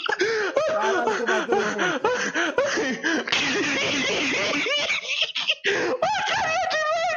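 Hearty human laughter: a quick run of repeated ha-ha syllables rising and falling in pitch, going higher near the end.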